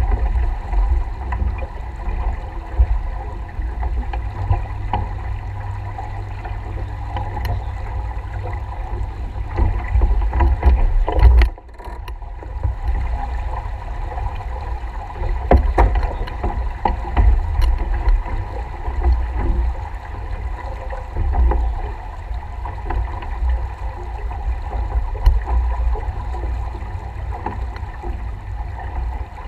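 Wind buffeting the microphone in a deep, steady rumble, with water washing past the hull of a small sailboat under way; a few faint clicks, and a brief dip in the wind noise about eleven seconds in.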